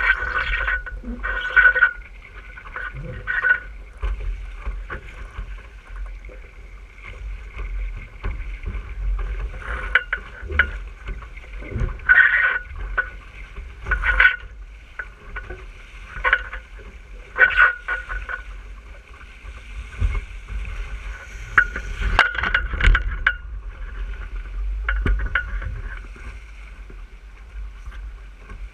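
Water rushing and splashing along the hull of an RS600 sailing dinghy moving fast, with wind rumbling on the microphone. Louder splashes of spray come every few seconds.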